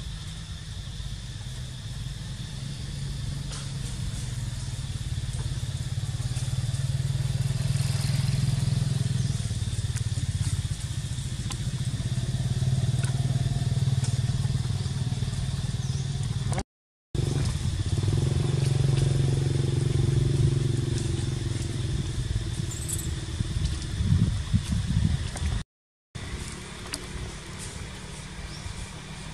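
Low engine rumble of passing motor vehicles, swelling and fading over several seconds, under a faint steady high whine. A short crackling rustle comes near the end, and the sound cuts out briefly twice.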